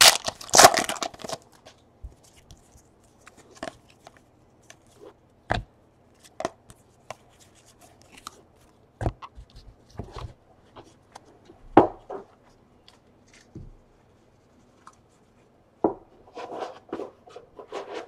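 A foil trading-card pack crinkling in the hand for about the first second, then scattered light clicks and taps of cardboard cards being handled and set down, with a burst of rustling near the end.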